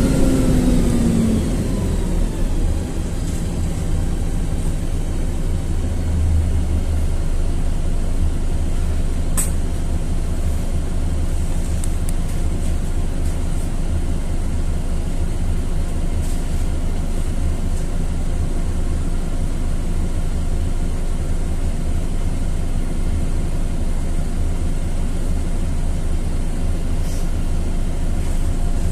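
LiAZ-4292.60 city bus under way, its engine and drivetrain giving a steady low rumble. A whine falls in pitch over the first two seconds. There is a single sharp click about nine seconds in.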